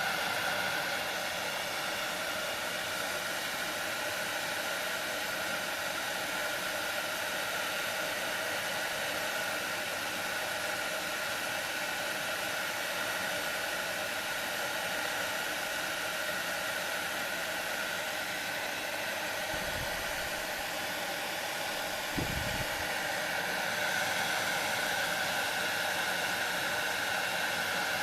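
Electric hot-air blower running steadily, a rushing airflow with a steady high fan whine.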